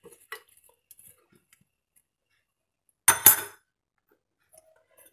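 A steel spoon clinks twice against a bowl in quick succession about three seconds in, after a few faint scrapes of stirring salad.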